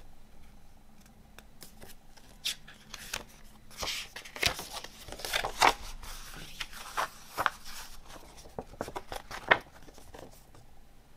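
A folded glossy paper CD insert being unfolded by hand: irregular rustling and crisp crackles of paper, with small taps against the table.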